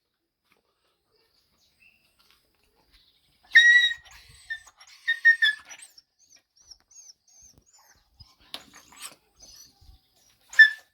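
Puppy yelping in short, high-pitched cries: one loud cry about three and a half seconds in, a few shorter ones a second or so later, and another near the end.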